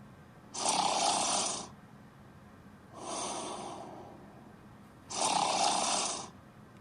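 Snoring: two loud snoring breaths, each about a second long, each followed by a softer breath out that fades away.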